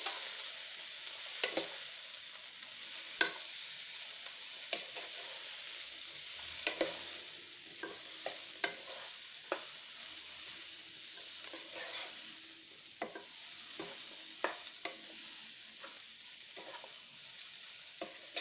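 Broccoli florets sizzling in hot oil in a pan, with a steady hiss. A wooden spatula stirs them, scraping and knocking against the pan in irregular clicks about once a second.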